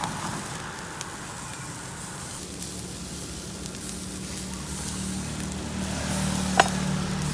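Crackling and sizzling as from a charcoal grill, over a steady low hum that grows a little louder in the second half, with one sharp click near the end.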